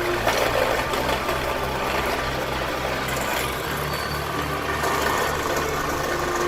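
Electric motor of a GQ-series rebar cutting machine running, a steady mechanical hum whose tone shifts slightly about halfway through.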